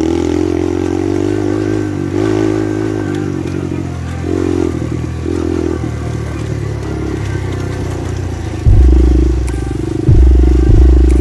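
Kayo 110cc pit bike's single-cylinder four-stroke engine running as the bike is ridden, the revs rising and falling. About three-quarters of the way in, several loud low thuds break in.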